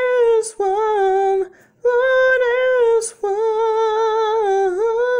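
A woman's voice singing unaccompanied, a few phrases of long held notes, with quick breaths between them.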